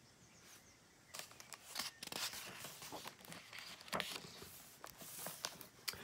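A page of a hardcover picture book being turned by hand: soft paper rustling with small crackles, starting about a second in.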